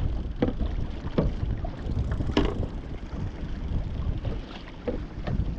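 Wind rumbling on the microphone, with a few scattered knocks and clunks of fishing gear being packed away on a kayak.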